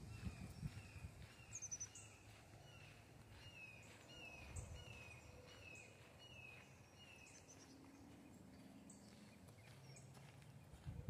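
Faint bird calling: a run of short downward-slurred chirps repeated about twice a second, with a few higher, thinner notes, stopping about three-quarters of the way through. A few faint low thumps in the first two seconds.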